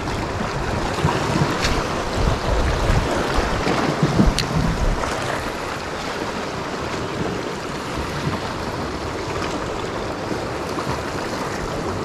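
Small sea waves washing against a rocky shore, with wind gusting on the microphone for the first few seconds. Two light clicks come through, one a couple of seconds in and one around four seconds in.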